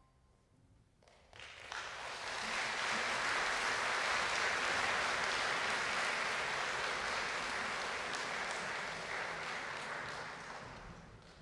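Audience applauding. The clapping starts about a second in, swells quickly, holds steady, then dies away near the end.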